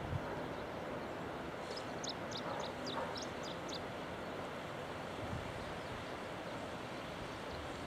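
Steady distant airport noise with a small bird chirping a quick run of about ten high notes about two seconds in.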